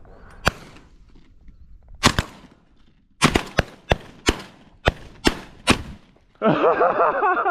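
A volley of 12-gauge shotgun shots from several hunters firing at passing doves: a single shot, another about a second and a half later, then a rapid string of about eight shots over two and a half seconds. A man's voice shouting loudly follows near the end.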